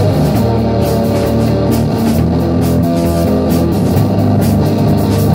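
Rock music: guitar over a drum kit, playing steadily.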